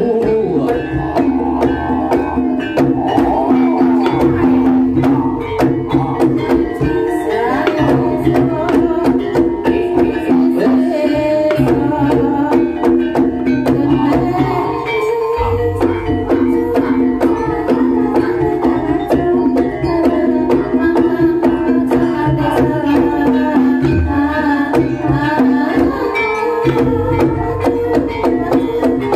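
Loud Javanese Banyumasan gending music accompanying the ebeg barongan dance: sustained melodic tones over a continuous hand-drum (kendang) rhythm, played through loudspeakers.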